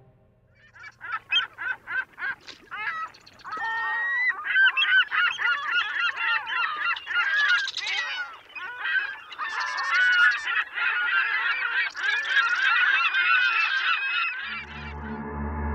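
Geese honking. At first single calls come a few per second; after a few seconds they give way to a dense chorus of many overlapping honks, as from a flock.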